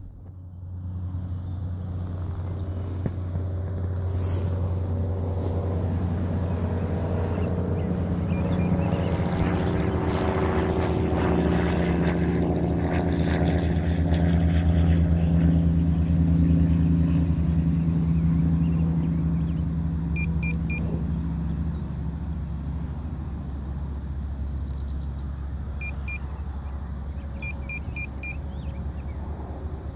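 Boat motor running steadily with a low hum, growing a little louder through the middle and easing off later. A few short high pips come near the end.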